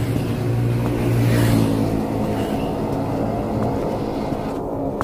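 Road traffic: a vehicle passes close by, loudest about a second and a half in, over a steady low hum, with motorbikes coming up the street.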